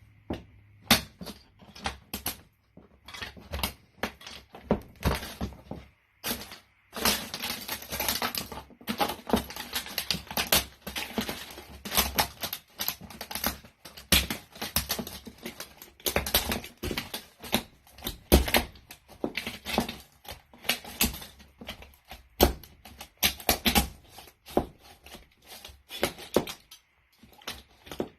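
A plastic toy car cracking and snapping as it is crushed under boots: a dense, irregular run of sharp crackles and snaps, with brief pauses about six seconds in and near the end.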